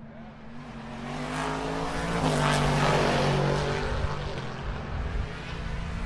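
A GT Le Mans race car passing by at speed: its engine note rises and grows louder as it approaches, drops sharply as it goes past about two seconds in, then fades away.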